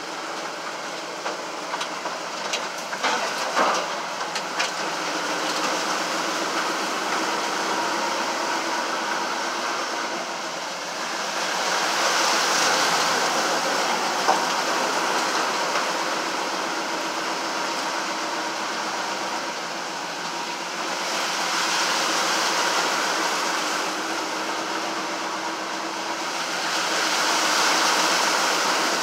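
Vehicle engine running steadily, heard from inside an open cab, as the tyres push through floodwater on a sandy trail; water splashing swells up three times, about twelve, twenty-two and twenty-seven seconds in. Rattling clicks and knocks in the first few seconds.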